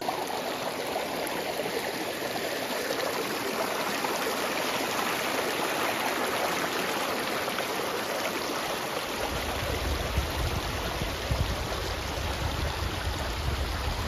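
Shallow stream rushing over rocks, a steady splashing hiss of running water. A low rumble joins underneath about nine seconds in.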